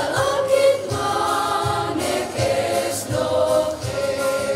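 Children's and youth choir singing a hymn together, many voices blended, over a low, regular beat in the accompaniment.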